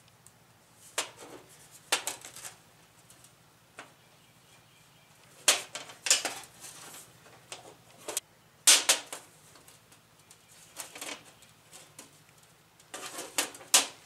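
Scattered sharp clicks and knocks of a metal car door handle and its bracket and spring being worked by hand against a steel workbench, the spring being fitted into its hole. A cluster of louder knocks comes near the end, as the handle is set down on the bench.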